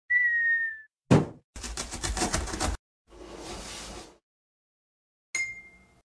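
Cartoon intro sound effects in a quick sequence: a short whistle that slides slightly down, a sharp hit about a second in, a rapid rattling clatter, a softer whoosh, and a bright ding near the end that rings out and fades.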